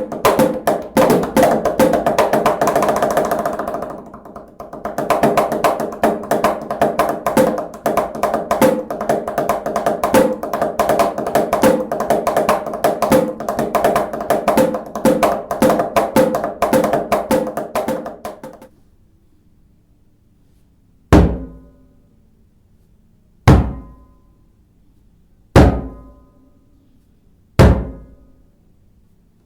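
Clapbox Cajembe, a 4-in-1 hand percussion box, played by hand in a fast, dense groove for most of the time. Near the end the groove stops and four single strikes follow, about two seconds apart, each ringing briefly.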